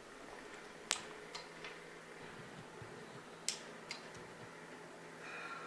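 Quiet room tone with a faint steady low hum, broken by a few sharp clicks, the clearest about a second in and about three and a half seconds in.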